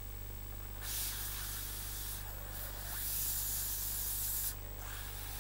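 Steam gun on a dry cleaner's spotting table hissing in gentle bursts, played onto sodium perborate bleach on a stain to melt it into the fabric and release the bleach's oxygen. The hiss starts about a second in, dips briefly, cuts off near the end and starts again.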